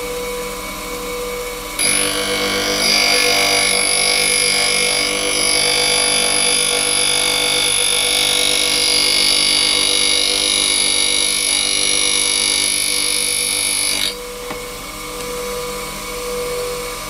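Bench grinder with a diamond wheel running steadily. About two seconds in, the wheel starts grinding a flute of a milling cutter held in a collet chuck: a loud, high-pitched grinding with a thin whine that holds steady, then stops suddenly about three seconds before the end as the cutter is drawn back, leaving the grinder running.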